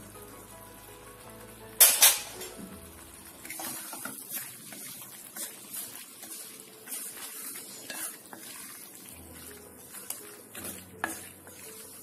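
Wooden spatula stirring boiled macaroni through masala in a stainless steel pan: soft scrapes and light knocks against the pan over a faint sizzle, with one sharp knock about two seconds in.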